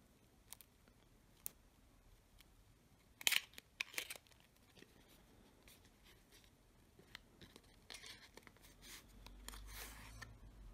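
A sealed playing-card tuck box being opened: a few sharp paper-tearing cracks about three to four seconds in as the seal sticker splits and the flap comes free, then soft cardboard rustling and small clicks as the flap is folded back and the cards slide out.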